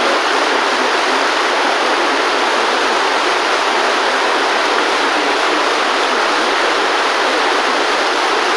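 Rushing whitewater at a waterfall, a steady, even wash of noise.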